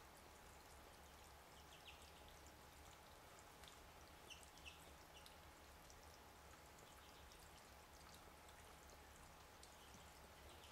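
Near silence: faint steady background noise with a low hum, and a few faint short high ticks, clustered about four to five seconds in.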